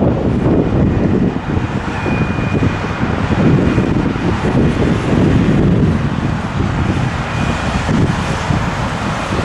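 Wind buffeting the microphone, a loud, uneven low rumble over a background of road traffic.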